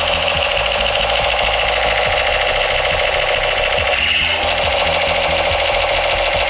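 Battery-powered toy machine gun playing its electronic firing sound effect through its small speaker: a loud, rapid, steady rattle that shifts briefly about four seconds in, as the effect loops.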